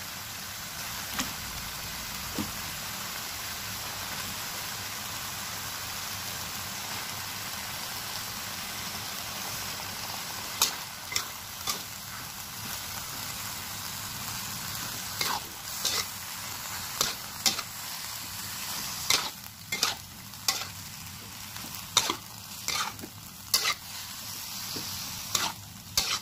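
Cuttlefish pieces frying in chili spice paste in a wok, a steady sizzle. From about ten seconds in, a spatula stirring them knocks and scrapes against the pan in sharp clicks, more and more often toward the end.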